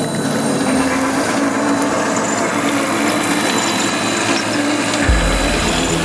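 Electric motors and geared drivetrains of 1/10-scale RC crawler trucks whining steadily as they crawl over loose dirt and rocks. A deeper hum joins about five seconds in.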